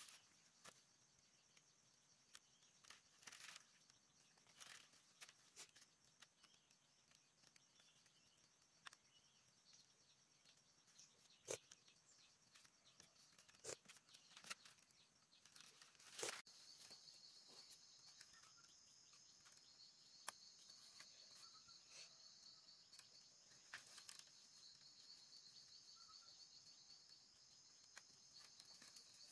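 Faint, scattered tearing and crackling of bamboo being split and stripped, with a few sharp snaps among them. Behind it, a steady chirring of insects that grows stronger about halfway through.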